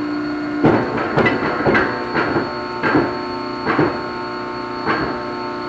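A run of sharp metal clanks and knocks, close together at first and then further apart, over a steady machine hum, as steel parts are handled and worked at a press brake.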